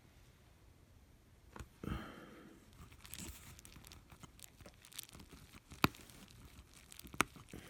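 Close-up crinkling and tearing of thin plastic film or adhesive backing being handled, with a short rustle about two seconds in and a few sharp clicks later on.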